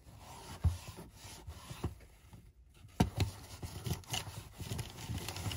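Paper towel being rubbed over a grimy calculator case, scrubbing it clean in repeated strokes. A few sharp knocks come in the first three seconds.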